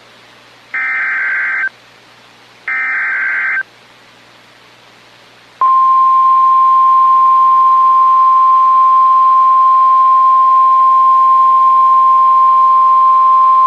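NOAA Weather Radio Emergency Alert System signal announcing a new warning. First come the last two of the three one-second warbling SAME data bursts that encode the alert header. About two seconds later the steady 1050 Hz warning alarm tone sounds for about nine seconds, then cuts off.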